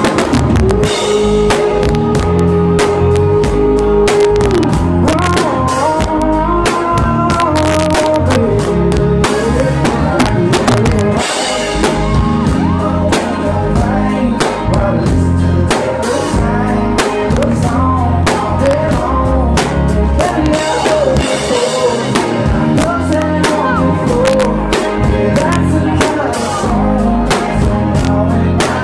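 Live country-rock band playing loud: drum kit, bass guitar and electric guitars, with a melody line of long held and sliding notes. One note is held for about four seconds near the start.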